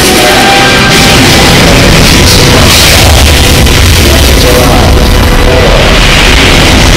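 Recorded Saturn V launch of Apollo 8 played through a theater's sound system at liftoff: a loud, dense rocket roar with music over it, the deep rumble growing stronger a couple of seconds in.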